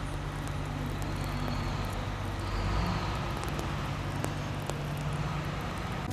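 Steady outdoor traffic noise with a low engine hum, swelling about halfway through as a vehicle passes.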